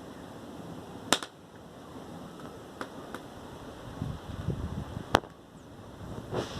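Fire burning in an adobe-brick fireplace, giving off sharp pops: two loud cracks about four seconds apart and a few fainter ones, over a steady background hiss.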